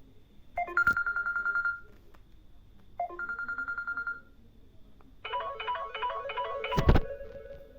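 Samsung Galaxy Tab A 9.7's speaker playing preset alert tones: a short trilling tone sounds twice, then a different repeating melodic tone starts about five seconds in. A thump near the end is the loudest sound.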